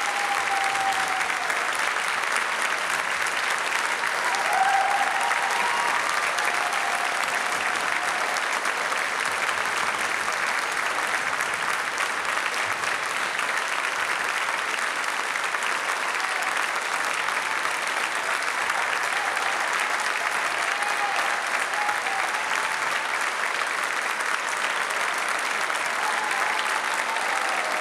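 Audience applauding, with a brief louder swell about five seconds in.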